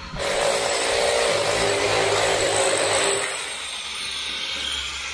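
A power tool running on a building site: a steady whine over a dense rushing noise that starts suddenly and drops somewhat in level about three seconds in.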